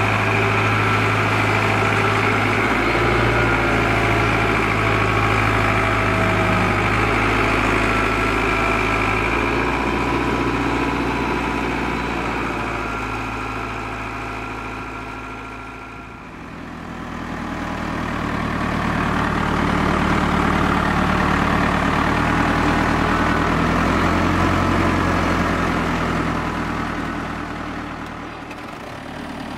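Case IH 885 tractor's diesel engine running steadily as the tractor is driven slowly. The sound fades down and comes back twice, once about halfway through and once near the end.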